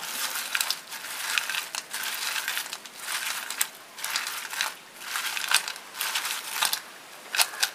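Crispy fried rice-flour fries being tossed by hand in a bowl with masala powder: a dry, crunchy rattling in waves as the stiff pieces knock together, with a quick run of sharp clicks near the end. The hard, brittle sound is the sign that the fries are fried crisp.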